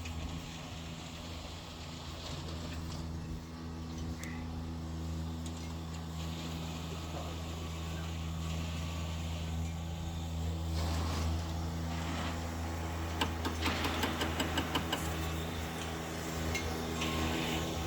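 A steady low mechanical hum, like a motor or engine running at an even speed, with a quick run of sharp clicks about thirteen seconds in.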